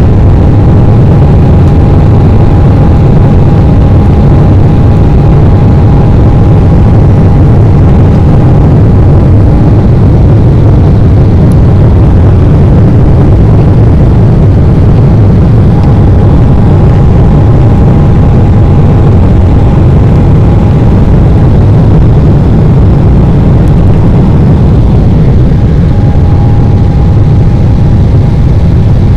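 Cabin noise of an Embraer E-190 climbing after takeoff, heard from inside the cabin beside the wing: the loud, steady roar of its GE CF34 turbofan engines and the rushing air. A thin steady whine rides on top, dropping out twice and returning.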